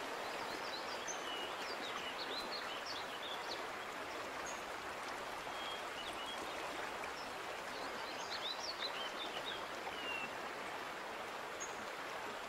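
Steady rush of a rocky stream, with small birds chirping over it in two short spells.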